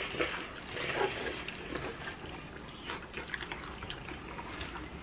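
A person chewing sauced fried chicken close to the microphone: irregular small smacks and clicks of mouth and teeth.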